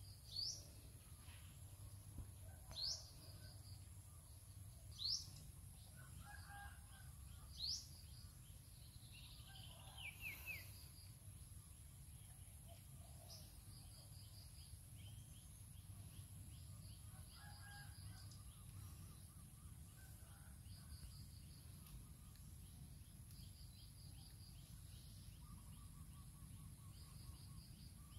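Birds calling against a quiet rural background. One bird gives four loud, sharp rising whistles about two and a half seconds apart in the first eight seconds, then a short falling run of notes about ten seconds in. Fainter chirps and short trills are scattered through the rest.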